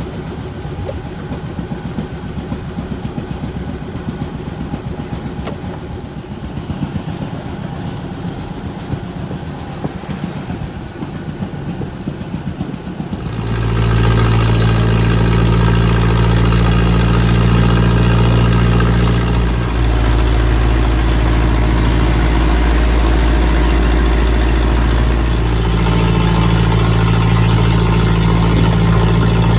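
A fishing boat's engine running under way, a loud steady drone that starts at a cut about 13 seconds in. Before it, a quieter engine chugs with a rapid even knock.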